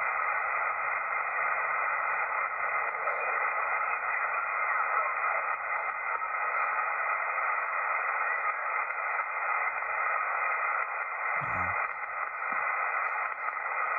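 Kenwood TS-440S HF shortwave transceiver in upper sideband on the 20-meter band giving steady static hiss from its speaker while the dial is tuned slowly. No station comes through. The band is dead because a geomagnetic storm has blacked out propagation.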